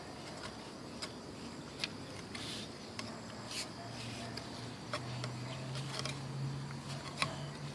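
Scattered soft scrapes and crackles of a hand digging in loose soil and pulling at sweet potato roots, with a steady low hum coming in about five seconds in.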